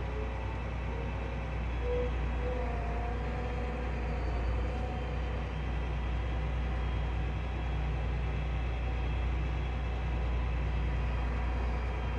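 John Deere 8260R tractor's six-cylinder diesel engine running steadily under heavy load, heard from inside the cab, as it pulls a 4-metre subsoiler through hard, compacted ground at low speed. The engine note rises slightly about two seconds in as the load comes on.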